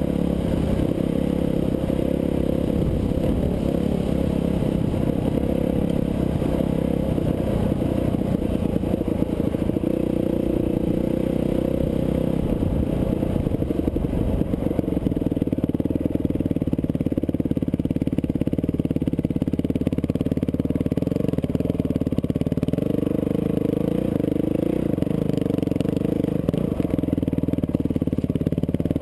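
Dirt bike engine running under throttle on a sandy trail, its pitch wavering up and down as the rider works the throttle, with occasional short knocks from the bumps.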